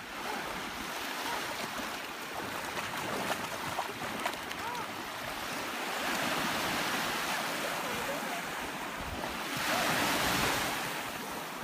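Small waves lapping and breaking in shallow surf, with wind on the microphone; the wash swells and is loudest about ten seconds in as a wave breaks close by.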